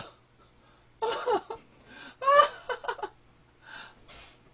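A man laughing in short voiced bursts that rise in pitch, trailing off into a couple of breathy huffs near the end.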